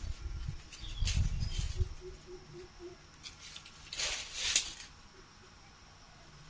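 Rustling and handling noises, with low thumps over the first two seconds and a louder crackling rustle about four seconds in.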